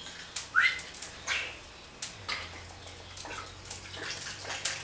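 Cachaça poured from the bottle into a glass of ice and muddled lime, trickling and splashing over the ice. Short squeaky chirps are the loudest sounds, one a quick rising squeak in the first second.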